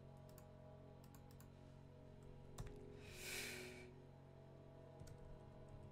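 Near silence with a steady low hum, a few faint scattered clicks like a computer mouse, and a short breathy hiss about three seconds in.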